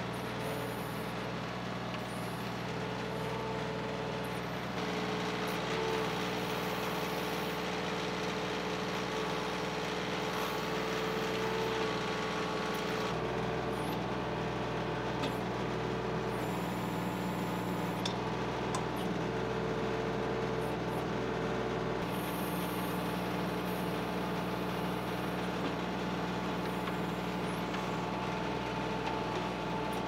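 TYM 2515 compact tractor's three-cylinder diesel engine running steadily while it powers the backhoe attachment digging a trench, with a higher tone that comes and goes as the hydraulics work.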